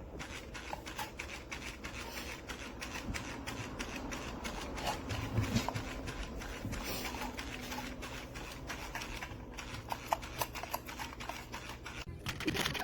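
Dense, rapid, irregular clicking and rattling of small hard parts over a faint low hum, cutting off abruptly at the end.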